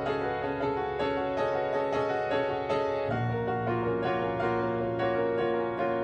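Piano music: a steady pulse of repeated chords, about two to three strikes a second, with the harmony shifting and a low bass note coming in about three seconds in.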